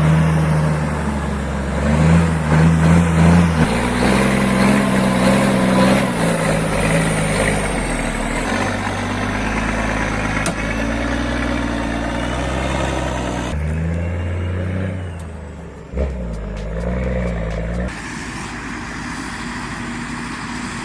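Heavy diesel truck engines running under load, their engine note shifting every few seconds. The sound changes abruptly three times in the second half.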